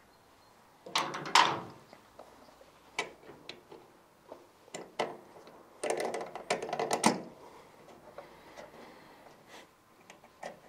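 Hand tools clicking and knocking on metal as the lower mounting bolt of a Vespa GTS300's rear shock absorber is undone with a socket wrench. There is a loud clatter about a second in, a few single knocks, and a quick run of clicks around six to seven seconds in.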